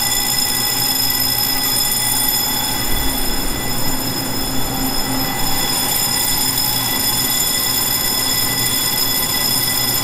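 Electric multiple-unit commuter train standing at the platform, its onboard equipment giving a steady hum with a high, even whine.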